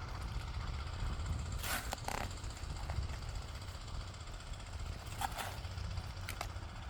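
Mini excavator's diesel engine running steadily with a low rumble, with a few short scraping knocks, about two seconds in and again near five seconds.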